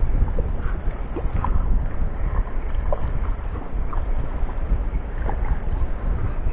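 Wind buffeting the camera's microphone, a loud steady low rumble, with a few faint short splashes from a small hooked fish at the surface.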